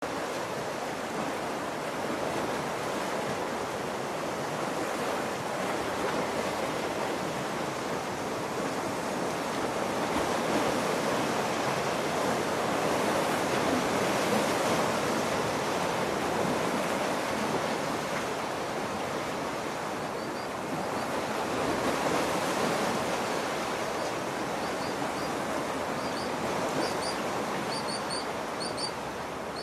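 Sea surf washing on the shore: a steady rush of breaking waves that swells twice. Faint, short, high chirps join in over the last few seconds.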